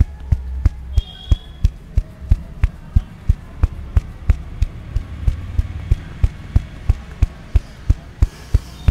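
Head-massage hair cracking: a barber's hands yank tufts of hair, making sharp, evenly paced snaps about three times a second over a low hum.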